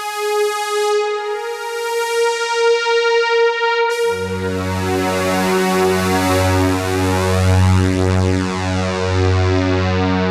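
Roland System-8 synthesizer in Jupiter-8 mode playing a preset: a single held note rich in overtones, rising slightly in pitch. About four seconds in, a deep, thick sustained chord with a strong bass enters and holds.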